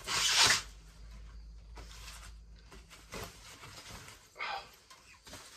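A guitar's soft foam wrap bag rustling as it is pulled off the instrument: a loud rustle at the start, then quieter crinkling with a couple of brief swishes.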